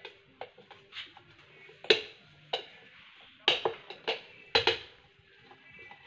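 Hard plastic cover plate of a shower mixer valve clicking and knocking as it is pressed and worked into place by hand: a string of irregular sharp clicks, the loudest about two seconds in and a quick cluster between three and a half and five seconds.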